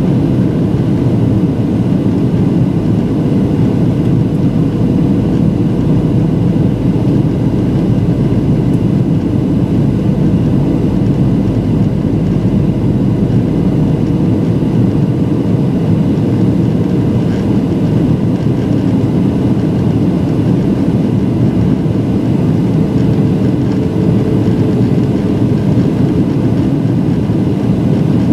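Steady engine and airflow noise heard inside the cabin of a Boeing 737 in flight, with a faint steady tone running above it.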